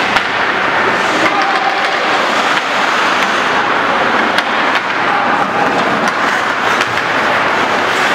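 Ice hockey in play: skate blades scraping the ice over a steady din, with several sharp clacks of sticks striking the puck.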